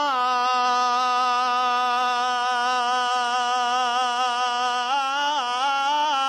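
A male Husseini radood (Shia elegy reciter) holding one long sung note, steady for about five seconds, then bending it into short melismatic turns near the end.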